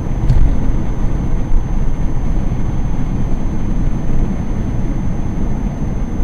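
Steady low road and engine rumble heard from inside a car's cabin while it cruises at highway speed. There is one short click about a third of a second in.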